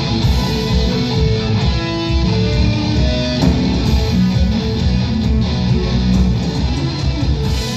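Live rock band playing loudly: electric guitars over bass guitar and drums, heard through the PA in a club room.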